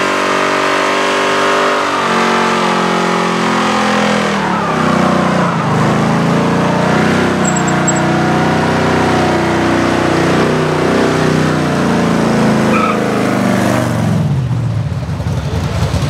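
Early-1950s Chevrolet sedan doing a burnout: its engine is held at high revs with the rear tyres spinning, and the revs waver up and down. The revs drop off about two seconds before the end as the car pulls away.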